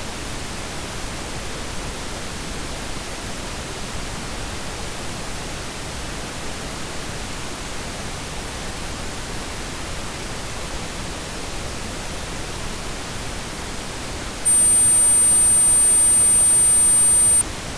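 Steady pink-noise hiss. About fourteen and a half seconds in, a loud, very high-pitched pure tone starts over it, holds steady for about three seconds and cuts off suddenly: a simulated tinnitus ringing.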